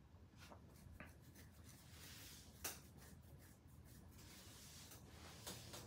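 Near silence with faint rustling and a few soft clicks from small handling noises, the clearest click a little under three seconds in.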